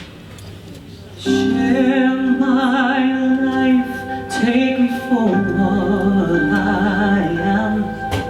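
Live singing: a male vocalist holds long notes with vibrato over instrumental backing. The voice comes in about a second in, after a brief quieter stretch.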